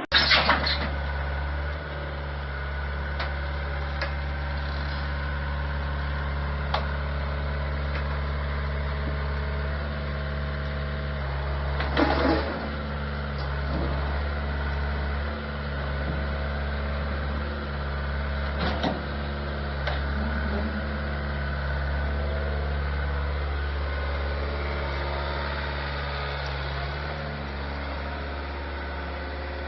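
Heavy engine running steadily at a constant speed, with a sharp knock right at the start and a few clanks about twelve and nineteen seconds in.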